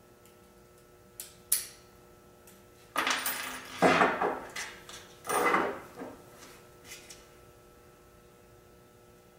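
Brass padlock clicking open under a pick, two sharp clicks about a second and a half in, followed by padlocks and metal lock picks clattering on a tabletop for about three seconds, the loudest part.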